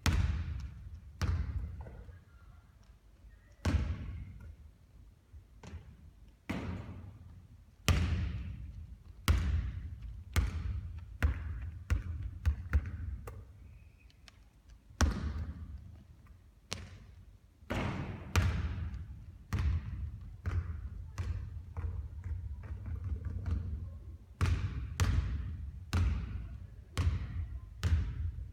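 A basketball bouncing on a hard court, sharp bangs about one to two seconds apart, some coming in quicker runs, during three-point shooting practice.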